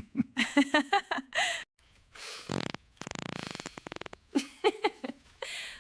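Cartoon fart sound effect: a buzzy rattle lasting about a second, with short breathy, giggly vocal bursts before and after it.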